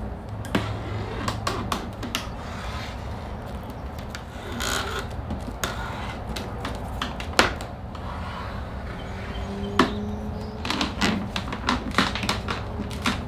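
Scattered clicks and taps of hands working a trunk lip spoiler onto a car's trunk lid, with a short rasp about five seconds in as the red backing strips are peeled off the spoiler's adhesive tape.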